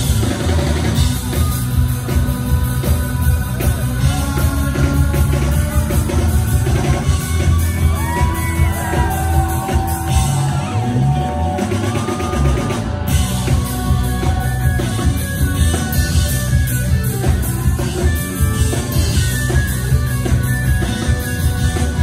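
Live rock band playing through a PA: drums, bass and electric guitar. The drums and cymbals drop back for a few seconds near the middle, leaving bass and sliding melody lines, then the full band comes back in.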